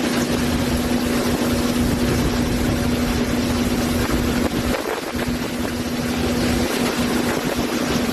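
Strong gusting wind and torrential rain buffeting the microphone: a loud, even rushing roar, with a steady low hum underneath that drops out briefly twice.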